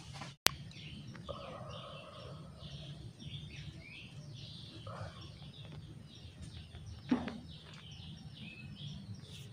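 Small birds chirping repeatedly over a steady low hum of outdoor background noise, with a sharp click near the start and a single knock about seven seconds in.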